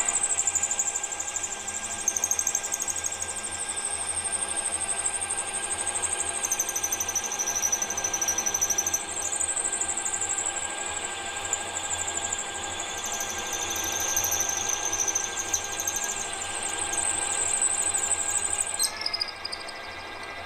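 Twist drill held in a lathe's tailstock boring into a spinning metal crankcase blank, making a steady high-pitched cutting squeal that wavers in pitch over the lathe's running hum. The squeal drops away near the end.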